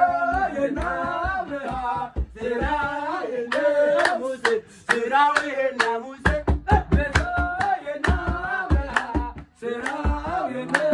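Voices singing together with steady rhythmic hand clapping; about six seconds in, a low thumping beat joins under the singing and clapping.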